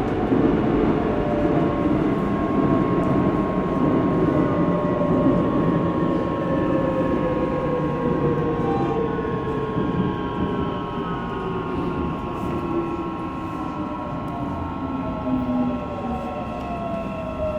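Inside a Korean subway car as the train slows: the running rumble of wheels on rail, with the electric traction motors' whine gliding steadily down in pitch as the train brakes into the station.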